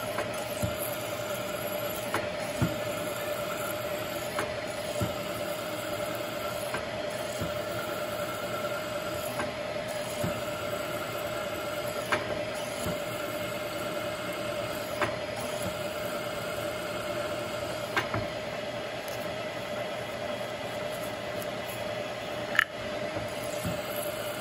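Milling machine spindle running with a steady hum while a long 0.201-inch tap drill is hand-fed down through a chain sprocket's hub to make the hole for a 1/4-20 set-screw thread. Light sharp ticks come every couple of seconds, with one louder click near the end.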